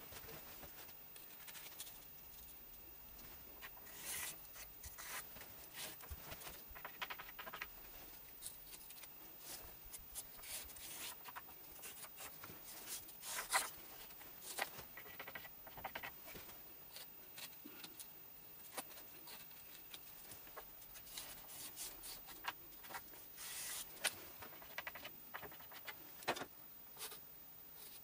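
Faint scratching and scraping as white outlines are drawn on rough-sawn white oak boards, with thin wooden templates slid and tapped on the wood. The noises come in short, irregular strokes, and the loudest scrape is about halfway through.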